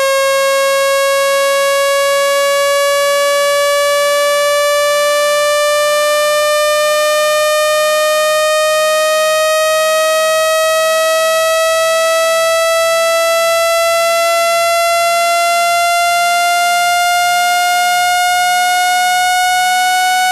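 Synthesized buzzy tone rising slowly and steadily in pitch, a continuous electronic sweep used as a speaker water-eject sound to vibrate trapped water out of an iPhone speaker grille.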